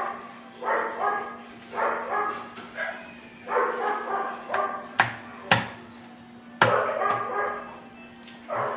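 A dog barking repeatedly, about a bark or two each second. A few sharp clacks around the middle come from metal tongs and a knife on a cutting board.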